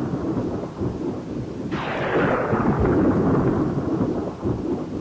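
Thunderstorm sound effect: heavy rain falling steadily, with a thunderclap breaking in a little under two seconds in and rumbling away.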